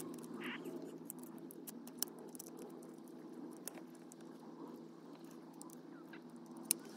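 Small plastic clicks and taps as an indicator-stalk switch and clock-spring assembly is handled and offered up to the steering column, the sharpest click about two seconds in and another near the end, over a steady low hum.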